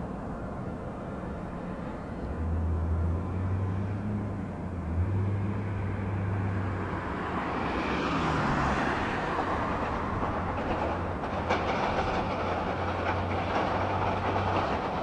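Airport ramp noise: the engines of ground-service vehicles running, with a steady low hum setting in a couple of seconds in. Midway a rushing noise swells as a truck approaches, followed by rattling and clatter.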